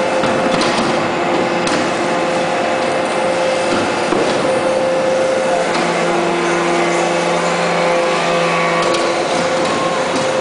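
Hydraulic briquetting press for metal chips running: a steady machine hum with a constant whine over noise and a few light ticks. A second, lower tone comes in about six seconds in and stops near nine seconds.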